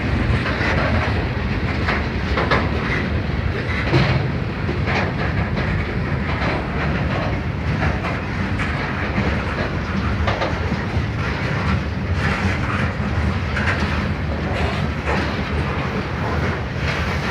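Freight train cars rolling past, wheels clicking and clattering over the rails with a steady rumble.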